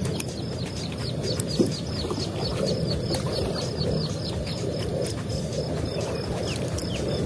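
Outdoor waterside ambience: a steady low background rumble under a rapid, repeating high chirp, about four a second.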